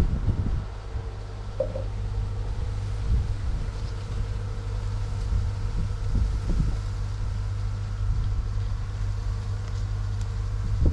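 Steady low rumble with a few soft knocks, like wind buffeting the microphone.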